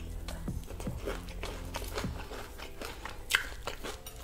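Close-miked chewing and biting of crispy homemade fried chicken, with small crackles of the crust throughout and a sharper crackle a little over three seconds in.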